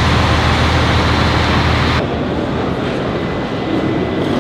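A bus engine idling, a steady low hum under outdoor traffic noise; about two seconds in it cuts abruptly to the quieter hum of a large airport terminal hall.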